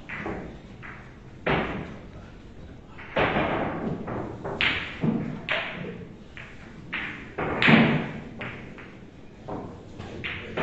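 Billiard balls on a boccette table, rolled by hand and knocking against each other and the cushions: an irregular string of thuds and sharp clacks.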